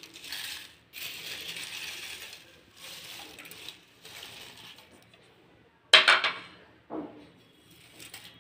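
Crisp, dry-roasted curry leaves crackling and rustling as hands press them into a steel mixer-grinder jar, in several short bursts. About six seconds in comes a sharp clatter, the loudest sound, then a lighter knock a second later.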